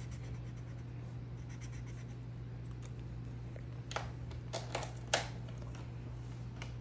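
Felt-tip marker scratching in quick strokes on sketchbook paper, followed by a handful of sharp clicks and taps between about four and five seconds in, the loudest just after five seconds, and one more near the end.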